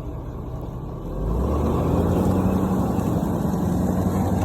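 Vehicle engine revving up about a second in, then running hard and steady under load as it pulls.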